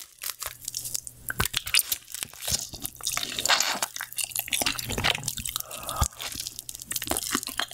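Close-miked biting and chewing of roasted meat: wet mouth sounds with many small, irregular clicks.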